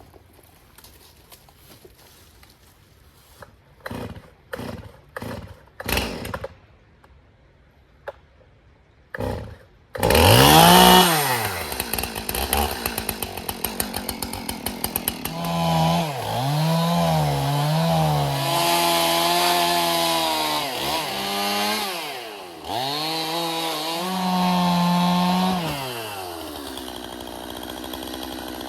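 A few knocks, then a Stihl MS 271 two-stroke chainsaw starts about ten seconds in, revs and cuts into a red oak trunk, its engine pitch dropping under load and rising again several times before it stops near the end.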